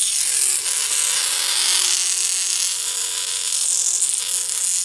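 Steady lightsaber hum played from a sound board through a bare, unhoused small test speaker: a constant buzzy hiss with a faint held tone underneath, which the builder finds weird and poor-sounding.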